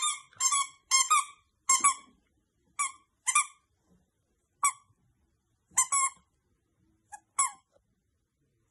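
Squeaker in a plush dog toy squeaking in short, irregular bursts as a beagle puppy bites and chews it, about a dozen squeaks, some in quick pairs, stopping a little before the end.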